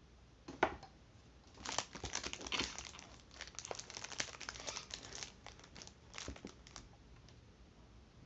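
Plastic packaging crinkling as ring-light parts are handled: a sharp click just after half a second in, then a few seconds of dense crackling, with a few more crinkles near the end.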